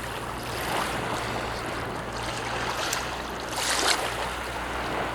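Black Sea surf washing onto a sandy beach, a steady rush of breaking waves that swells about a second in and again, louder, near four seconds.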